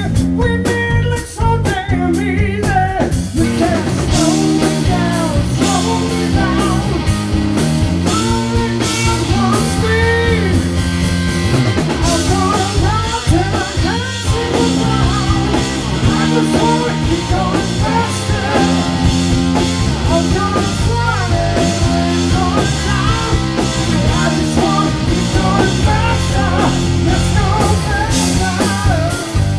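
Live rock band: male lead vocal over an electric guitar, with drum kit and bass. The first few seconds come in short, choppy accents before the full band plays on steadily.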